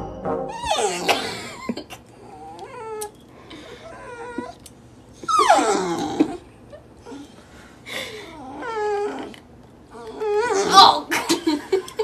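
A pet's drawn-out, wavering vocal calls, repeated about half a dozen times. Most fall in pitch, and the longest and loudest come about five seconds in and again near the end, with shorter, quieter calls between.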